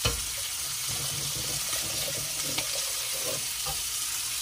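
Beef stock poured steadily from a measuring cup into a saucepan of wine and shallots, a continuous splashing pour, with a light knock at the start.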